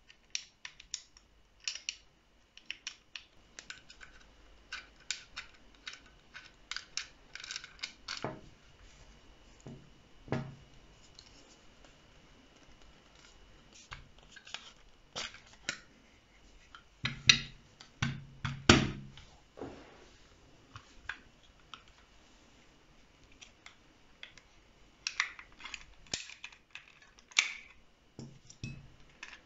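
Small clicks, scrapes and taps of a KJW MK1 airsoft pistol being taken apart by hand: an allen key working the screws and the metal and plastic parts being handled and set down, with a few louder knocks a little past halfway.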